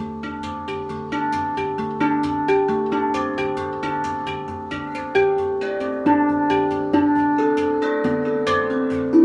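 Meditative instrumental music: ringing pitched notes struck or plucked in a quick, even stream, each note sustaining and overlapping the next, with a few stronger accented notes in the second half.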